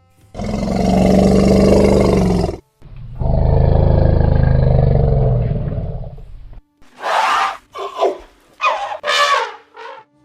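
Elephants calling: two long, loud, deep roars, then a run of shorter, higher calls in the last few seconds.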